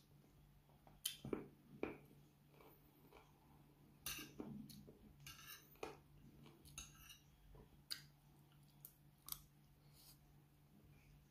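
Spoon and fork clinking and scraping against a plate while scooping rice and meat, heard as scattered sharp clicks at irregular intervals, with quiet chewing between them.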